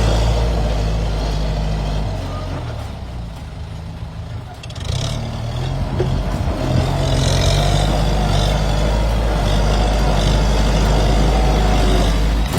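Kubota M7040SU tractor's four-cylinder diesel engine running. It drops quieter about two seconds in, then picks up again around five seconds in and runs steadily louder.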